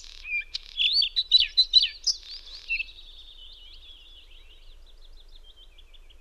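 Small songbirds singing: loud, varied whistled phrases from a bluethroat for the first three seconds or so, then a common linnet's fainter, quicker twittering.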